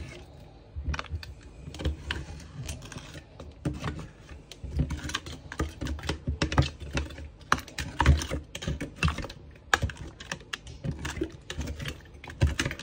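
A spoon clicking and scraping against the inside of a glass Kilner jar in quick, irregular strokes as blackberries steeped in sugar are stirred, mixing settled sugar into the juice the berries have released.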